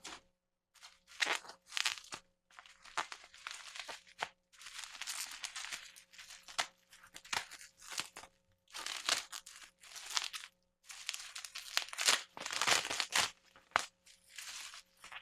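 Cardboard box and plastic packaging rustling, crinkling and tearing in irregular bursts, with small clicks, as a model horse is worked free of its box.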